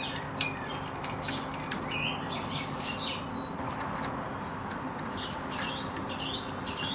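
Birds chirping and singing in short, repeated calls, with a few light clicks as small screw terminals are done up by hand on a battery pack.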